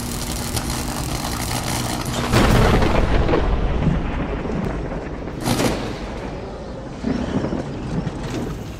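Logo-reveal sound effects: electric crackling over a low hum, then a heavy boom about two seconds in that slowly dies away, with a second sharp hit about five and a half seconds in and a smaller one near the end.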